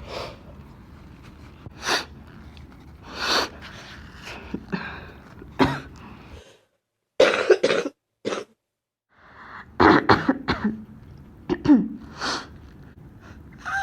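A person with a chest cold coughing in a string of short, separate coughs and throat-clearings, about ten in all. They are the congested coughs of someone starting to bring up mucus.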